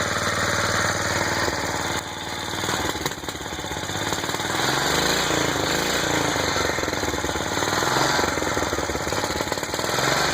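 Whizzer single-cylinder four-stroke bicycle motor running with a rapid, even firing beat, its speed rising and falling a few times. It is running well with a freshly cleaned carburettor and a micro filter fitted after sitting for years.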